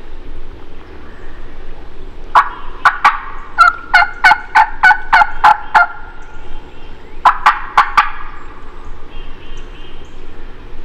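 Wild turkey yelps: a series of about a dozen loud, sharp yelps, then three more after a short pause.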